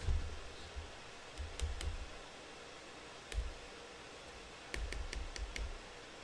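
Batter being stirred in a mixing bowl: a few scattered sharp clicks of the utensil against the bowl, with a quick run of clicks near the end, over low bumps of handling.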